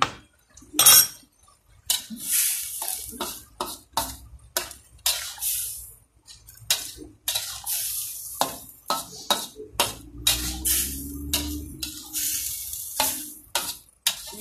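A metal fork scraping and clinking against a metal wok as food is stirred, in a quick, irregular run of strokes.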